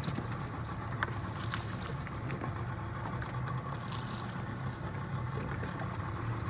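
Fishing boat under way at sea: the motor's steady low drone under a hiss of water and wind, with a few faint knocks.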